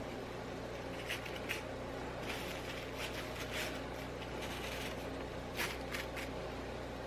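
Short, light scrapes and rustles from craft materials being handled while paint glaze goes onto a toy bird cage, over a steady low hum.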